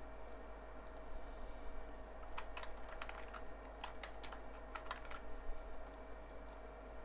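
Computer keyboard keys clicking in a quick run of typing, from about two and a half seconds in to about five and a half, over a faint steady hum.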